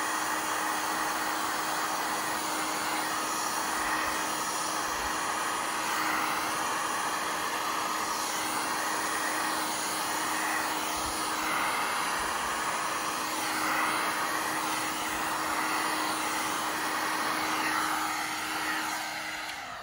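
Black+Decker heat gun running steadily, a rush of hot air with a constant hum, played over wet epoxy resin. It is switched off right at the end and winds down.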